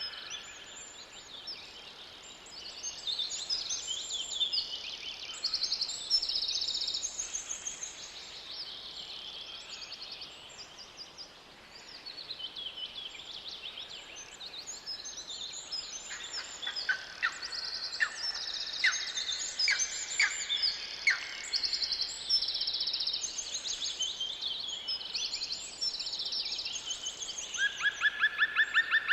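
Several songbirds singing at once in a forest, overlapping chirps and fast trilled phrases, over a faint steady background hiss. A run of rapid repeated notes stands out about two-thirds of the way in, and another loud trill begins near the end.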